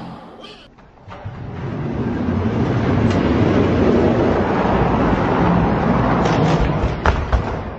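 Die-cast toy monster trucks rolling down an orange plastic Hot Wheels-style track: a steady rolling rumble that builds after about a second and holds, with a few sharp clacks near the end.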